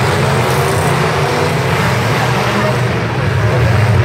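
Engines of demolition derby pickup trucks running loud and steady in the arena, with a heavy low engine note.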